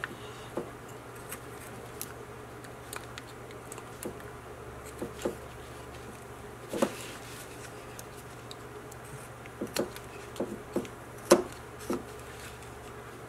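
Carving knife cutting small chips from a basswood figure: scattered soft slicing strokes and little clicks at irregular intervals, the sharpest about eleven seconds in, over a steady low hum.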